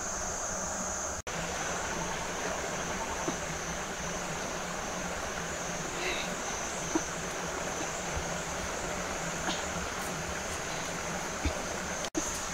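Steady outdoor ambience: an even rushing hiss of flowing water under a continuous high-pitched insect buzz, with a few faint ticks; the sound drops out for an instant twice.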